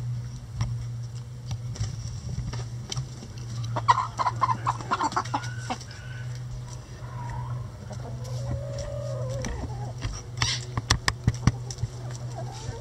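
Hens clucking, with a burst of quick clucks about four seconds in and a long drawn-out call later. Near the end comes a run of sharp taps as beaks peck at a hanging head of red cabbage.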